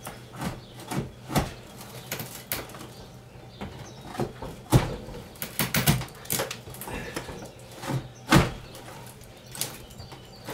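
Pry bar working at old wooden roof boards overhead: irregular knocks, scrapes and creaks of metal on wood, with the hardest knocks about five seconds in and again about eight seconds in.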